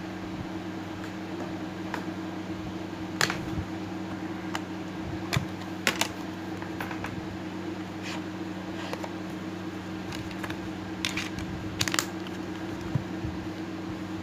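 Irregular sharp plastic clicks and taps as the Itel A41 phone's back cover and battery are handled: the battery is taken out and fitted back in. A steady low hum runs underneath.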